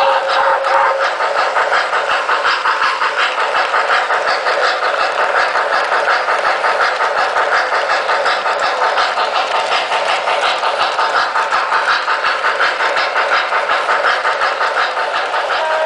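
O-gauge model steam locomotive running with a steady rhythmic chuff, about four beats a second; its whistle dies away about a second in.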